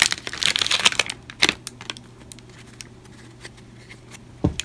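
Cellophane wrapper of a 1988 Topps football cello pack crinkling as it is pulled open, in several crackly bursts over the first second and a half. Then comes faint rustling as the stack of cards is handled, with a brief knock near the end.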